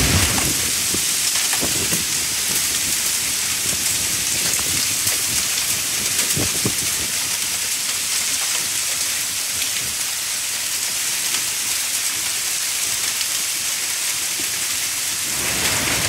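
Heavy downpour: torrential rain pouring onto the street, lawns and trees in a steady, dense hiss. A fuller, lower rush comes in near the end.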